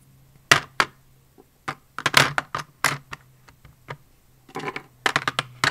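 Plastic lip gloss and lipstick tubes clicking and clacking against each other and a clear plastic storage drawer as they are put back in one by one: a string of sharp, irregular clicks, some in quick clusters, over a faint low hum.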